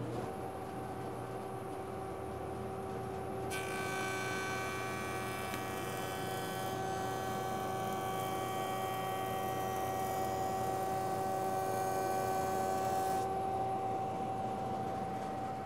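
Jointer running with a steady motor hum. From about three and a half seconds in until about thirteen seconds, its cutterhead cuts the edge of a board fed along the fence, which adds a brighter, louder cutting noise. The motor then runs on alone.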